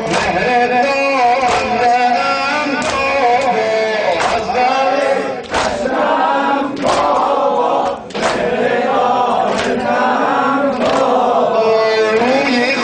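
A Shia noha lament chanted by a singer, with mourners striking their chests in unison in sina zani, one beat about every 1.4 seconds.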